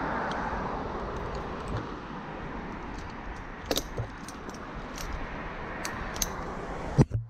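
Metal climbing hardware on an arborist's harness clinking and jangling over a steady rushing noise, with scattered sharp clicks and one loud knock near the end.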